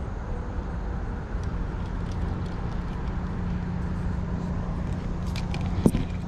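Steady low outdoor rumble, with a few light clicks near the end and one sharp click just before it ends.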